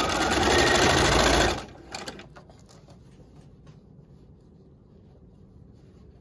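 Electric sewing machine with a walking foot stitching rapidly through a thick quilt binding edge, then stopping suddenly about a second and a half in. A few faint clicks follow just after it stops.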